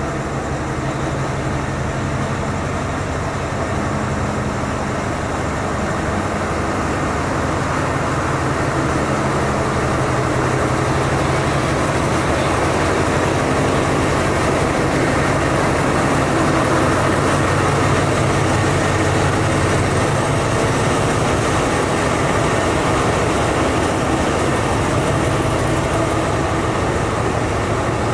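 State Railway of Thailand diesel-electric locomotive idling at the platform: a steady engine drone with a low hum, growing louder toward the middle and easing off slightly near the end.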